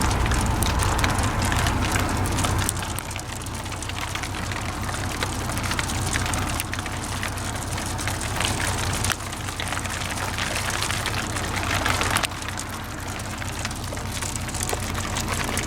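Car interior while driving: a steady low road rumble under a dense crackling hiss, which shifts in level about three seconds in and again near the end.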